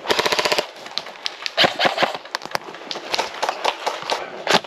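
Airsoft guns firing: a rapid full-auto burst of about half a second at the start, then scattered single shots and short bursts.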